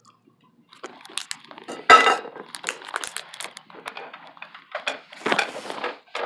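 Dishes and cutlery being handled, clinking and clattering in short knocks, with one louder ringing clink about two seconds in.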